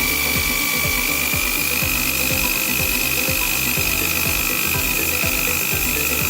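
Electric hammer drill running at full speed with a steady high whine, spinning a magnet rotor inside a rewound washing-machine motor stator being tested as a generator.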